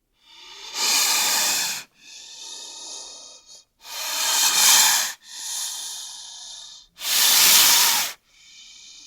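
Snake hissing: three loud hisses of about a second each, roughly three seconds apart, each followed by a quieter, drawn-out hiss.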